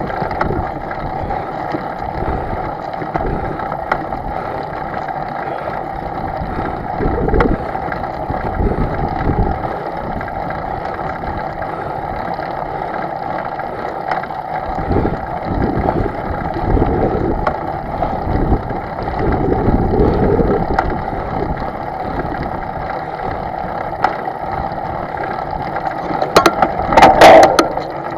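An engine running steadily at an even pitch, with a loud clatter near the end.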